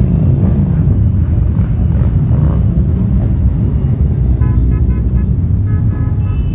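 Engines of a large pack of motorcycles rumbling steadily as they ride slowly past, with several short horn toots a little past the middle.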